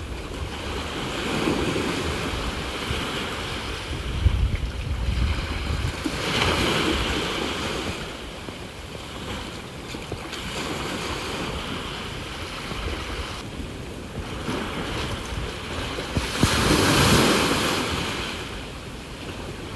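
Ocean waves washing in against the shore in a continuous surge, rising and falling, with the strongest wave breaking near the end. Wind buffets the microphone with a low rumble.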